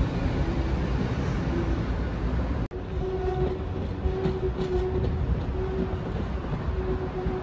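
Berlin U-Bahn trains running on elevated track: the rumble of a train pulling away, then, after an abrupt cut about a third of the way in, a train approaching with a tone that comes and goes over its running noise.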